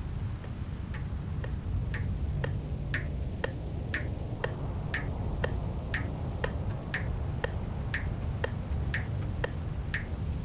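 Steady, even ticking, about two clicks a second, each click with a short ringing tone, over a low steady rumble.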